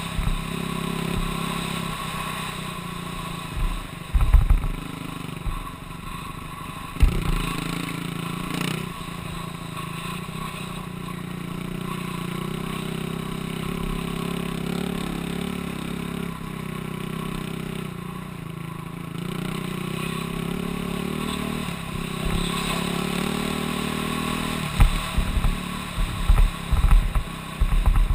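Dirt bike engine running at speed along a rough dirt track, its pitch rising and falling with the throttle. Bursts of low rumble hit the microphone about 4 and 7 seconds in and again several times near the end.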